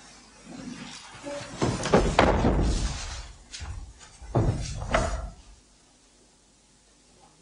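Heavy thumps and scuffs of feet on a wooden stage floor: a loud cluster about two seconds in and another pair near the middle, then near quiet from a little past halfway.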